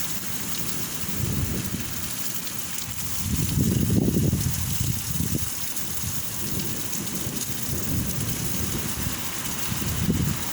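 A steady rushing hiss with irregular low rumbles from wind buffeting the microphone, the strongest swell about four seconds in.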